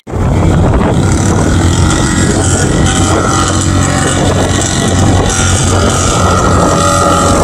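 A mud bog truck's engine revving hard as it launches and accelerates down the dirt track, running loud and steady with its pitch climbing near the end.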